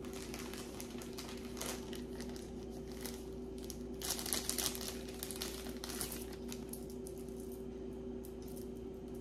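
Crinkling and rustling of the jewelry's packaging bag as it is handled, in several short spells, the busiest about four to five seconds in, over a steady low hum.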